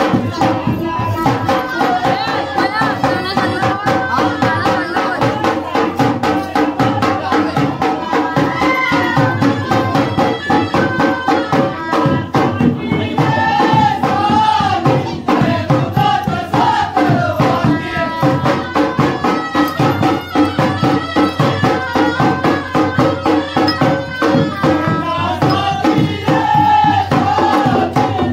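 Indian folk music with a voice singing over fast, steady hand-drum and jingling percussion.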